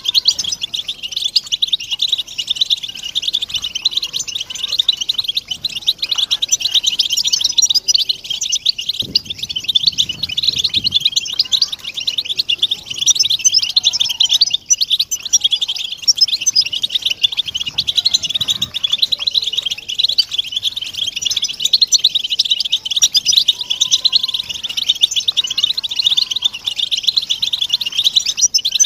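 Flock of European goldfinches twittering together, many rapid chirps overlapping into a continuous chatter. These are the group twitter and contact calls that breeders play to stir silent male goldfinches into song.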